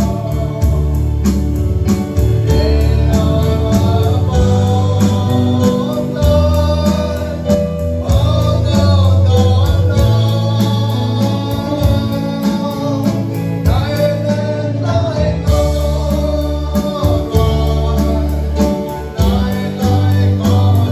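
A man sings a gospel hymn in Jarai into a microphone, backed by acoustic and electric guitar, with a full bass line and a steady beat.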